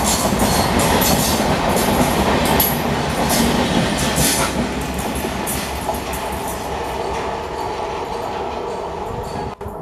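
Express train's passenger coaches rolling past, steel wheels clicking over the rail joints with a steady rumble. The sound fades as the last coach goes by and the train draws away.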